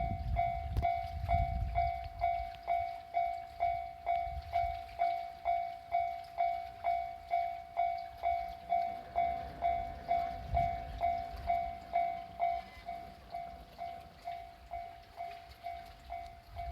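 Railway level-crossing warning bell ringing, a repeating electronic clang about twice a second. Low rumbling runs underneath, strongest in the first two seconds and again about ten seconds in.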